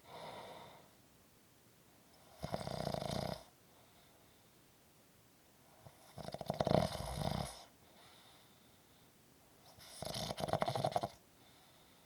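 Snoring in sleep: three snores about four seconds apart, the middle one the loudest, with quiet breathing gaps between them.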